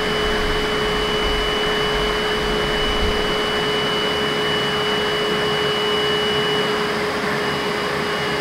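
BISSELL SPOTbot handsfree spot cleaner running loud, its suction motor giving a steady rushing noise with a constant whine over it.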